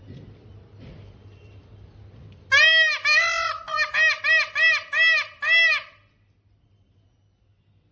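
Indian peafowl (peacock) calling: a loud run of about eight honking calls, each rising and falling in pitch, the first two longer than the rest, starting about two and a half seconds in. Before that, only a faint low rumble.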